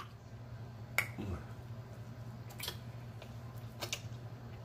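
Eating a sauced chicken wing dipped in ranch: a handful of sharp, wet mouth smacks and clicks while chewing, over a steady low hum.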